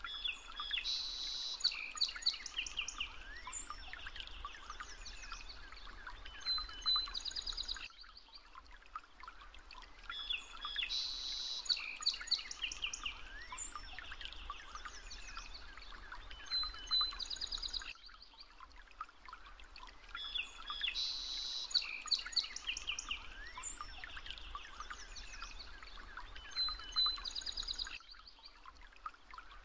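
Birdsong ambience: several birds chirping and calling in quick high notes. The same stretch of recording repeats about every ten seconds, with a short quieter dip between repeats.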